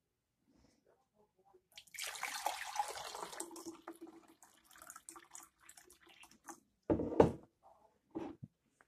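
Water pouring into a glass measuring cup, hissing strongly at first and then tapering off over a few seconds. This is followed about seven seconds in by a sharp loud knock on the counter and a lighter knock a second later.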